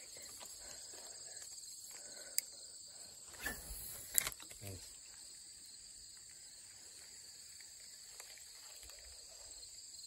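Steady, high-pitched chorus of insects in the grass, with a few brief clicks and rustles about halfway through.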